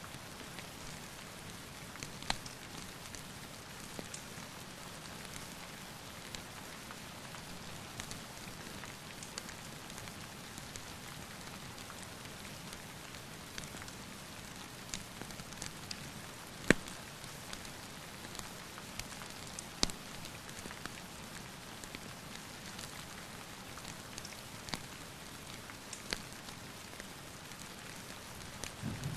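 Steady rain hissing, with sharp crackles and pops from a wood fire scattered through it; the loudest pop comes about seventeen seconds in. A low rumble of thunder begins at the very end.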